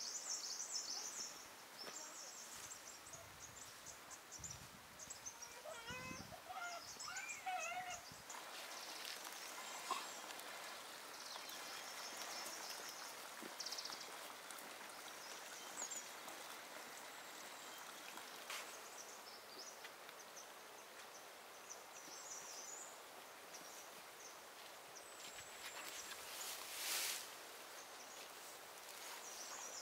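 Faint outdoor ambience with small birds chirping high and repeatedly. About 27 s in there is one brief rustling swish.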